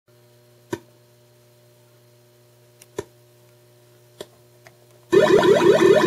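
Williams Whirlwind pinball machine's sound through its speaker: a steady hum with a few sharp pops, then about five seconds in a loud synthesized sound effect of rapidly repeating rising sweeps suddenly cuts in. The sound cutting in and out is the intermittent fault traced to a failing 6802 CPU on the Williams 11B MPU board.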